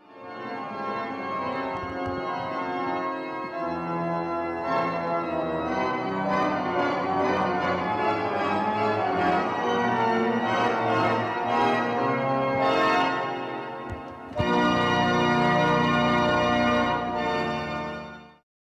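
Organ music: sustained chords that shift every second or so, ending on a long held chord that cuts off suddenly near the end.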